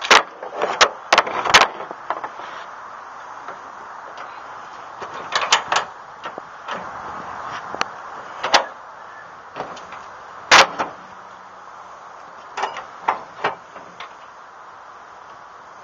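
Chevy S-10 pickup tailgate being worked on its new cable straps: an irregular series of sharp metal knocks and clunks, the loudest about ten seconds in, as the tailgate and its cables are handled.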